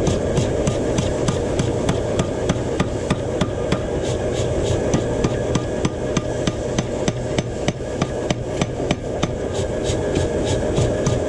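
Hammering on hot steel during knife forging: sharp, evenly spaced metal blows at about four a second, over a steady low rumbling noise.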